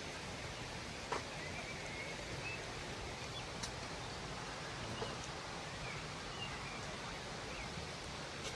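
Steady rushing of a waterfall, an even wash of falling water, with a few faint short chirps over it and a light click about a second in.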